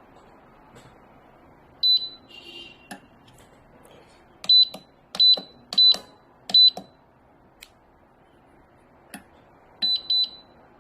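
Electronic keypad of a fingerprint pistol safe beeping: one beep, then four keypress beeps about two-thirds of a second apart as the four-digit code is entered, and two quick beeps near the end, with faint clicks of the buttons.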